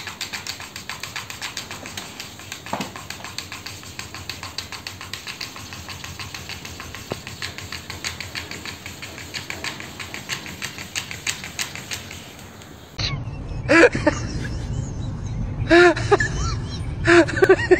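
A fast, steady run of light typewriter-like clicking while a cat paws at a laptop. After an abrupt change, a Siberian husky gives about four short, loud calls that rise and fall in pitch.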